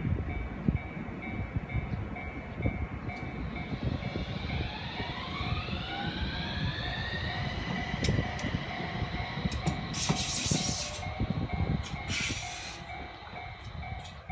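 Fukui Railway FUKURAM F1000 low-floor articulated tram pulling away, its traction-motor inverter whine climbing in pitch in several steps as it accelerates, over a steady rumble. A level-crossing warning bell rings in a steady beat throughout, and there are two short hisses about ten and twelve seconds in.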